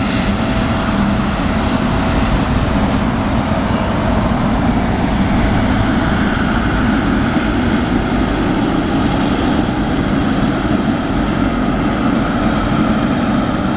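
Boeing 777F freighter's GE90 turbofan engines running at idle taxi thrust, a steady jet whoosh and rumble with no spool-up.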